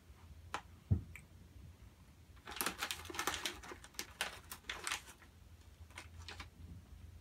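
Plastic snack bag crinkling and rustling as fingers work at it, a dense crackly patch lasting a couple of seconds from about two and a half seconds in, with a few scattered clicks before and after and a soft thump about a second in.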